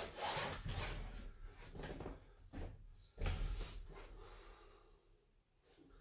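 Handling noise of an OEX folding camping cot being turned around and tipped over: its fabric rustling and its frame knocking, with a low thump about three seconds in.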